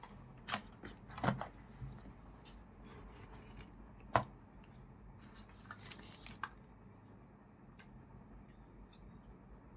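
Small plastic gear and packaging being handled and set down on a table: a handful of sharp clicks and knocks, the loudest about four seconds in, with faint rustling and ticks between, then quieter in the last few seconds.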